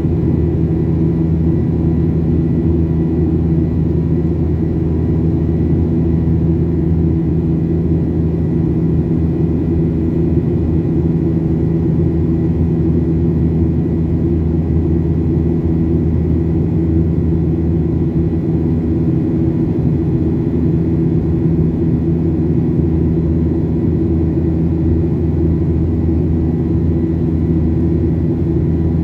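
Steady drone of a jet airliner's turbofan engines heard inside the cabin: a deep hum with several low, unchanging tones over a rushing noise.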